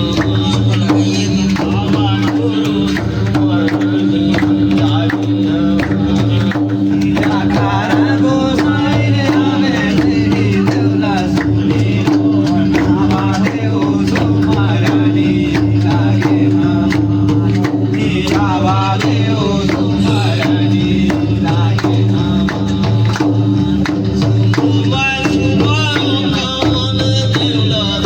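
Devotional folk song in Chhattisgarhi jas geet style: a voice sings in wavering phrases over rhythmic drums and a steady held drone.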